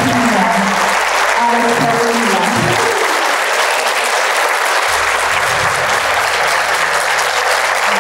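Audience applauding steadily, many hands clapping at once. A voice-like pitched sound rises and falls over the clapping during the first three seconds.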